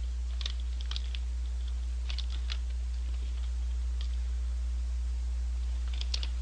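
Scattered short crinkles and crackles of a paper McDonald's Shaka Shaka fries bag being handled and eaten from, over a steady low hum.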